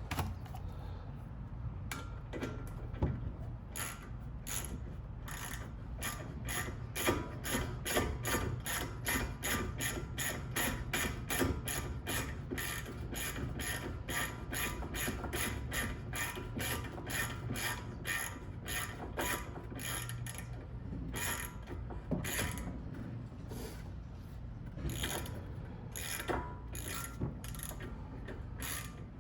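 Ratchet socket wrench clicking steadily as it is swung back and forth to unscrew a front brake caliper bolt through a #10 Allen socket on an extension.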